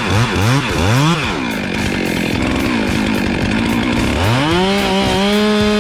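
Two-stroke chainsaw revved in quick throttle blips, about two a second, for the first second. It then runs lower and rougher for a few seconds and climbs to a steady high-pitched full-throttle whine about four seconds in.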